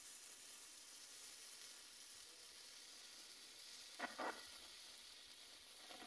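Small gold-rain firework fountain spraying sparks with a steady high hiss, with a couple of short, faint noises about four seconds in.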